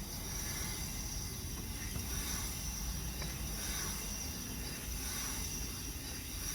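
Rear brake of a 2011 Hyundai Santa Fe dragging as the wheel is spun, with a faint scrape about once a second each time a gouged spot on the rotor passes the caliper. It is the sign of a loose, binding caliper wearing into one spot of the rotor.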